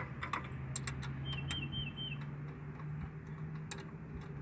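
Scattered light metallic clicks and ticks from a short 15mm open-ended wrench working the bolts of a Chevy Silverado's AC belt tensioner pulley, over a steady low hum. A few brief high chirps come between one and two seconds in.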